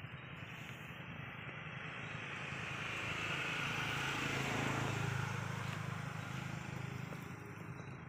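A motor vehicle passing by, its engine and tyre noise growing louder to a peak about four to five seconds in, then fading away.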